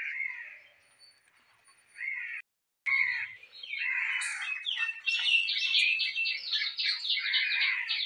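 Small birds chirping and twittering, with a dense run of quick repeated chirps from about five seconds in. The sound drops out for about a second near the start.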